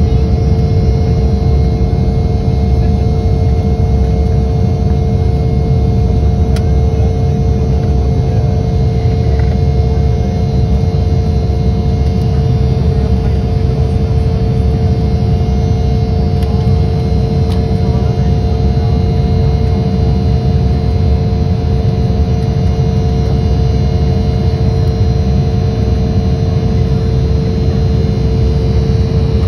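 Jet airliner cabin noise during the climb just after takeoff: the engines give a steady low rumble with a constant hum and faint whine over it, unchanging throughout.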